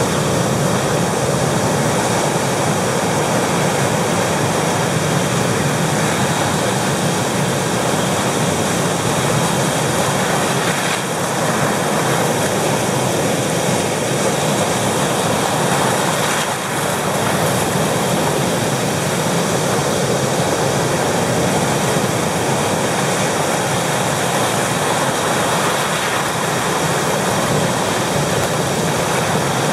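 Pacific Ocean surf breaking and washing in foam over shoreline rocks: a loud, steady rushing roar.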